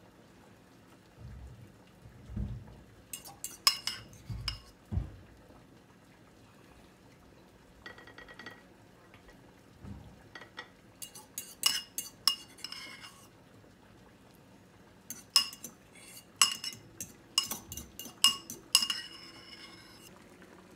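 Metal fork clinking and scraping against a ceramic bowl in three clusters of quick, ringing taps, with a few soft thumps in the first five seconds.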